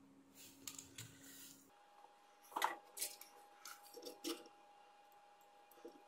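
Faint bench work with a soldering iron and solder wick on a circuit board: a brief hiss in the first second and a half, then a few sharp clicks and taps of tools between about two and a half and four and a half seconds in.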